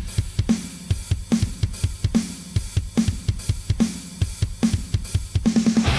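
Programmed rock drum kit playing alone as a song intro: a steady beat of bass drum, snare, hi-hat and cymbals, ending in a quick fill of rapid hits.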